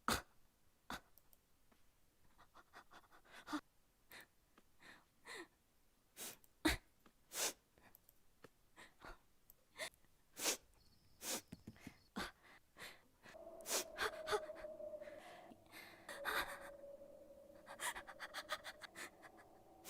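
A man breathing close to a microphone: a string of short, sharp inhales, sighs and small mouth clicks at irregular intervals. About two-thirds of the way through, a steady low hum joins underneath.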